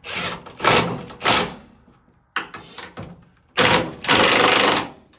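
Impact wrench hammering bolts in, run in several short bursts and then one longer burst near the end, driving home the mounting bolts of a truck's gas tank.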